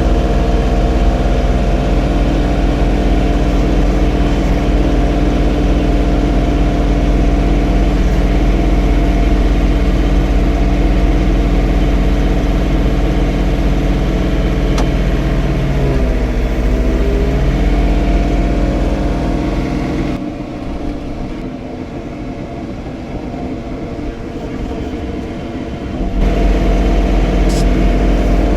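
John Deere 3046R compact tractor's diesel engine running steadily at working speed while snow blowing. About halfway through its pitch dips briefly and recovers, as under load. A little later the sound turns quieter for several seconds, the low rumble gone, before coming back near the end.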